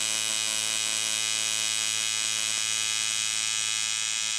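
AC TIG welding arc on aluminum: a steady, loud electric buzz.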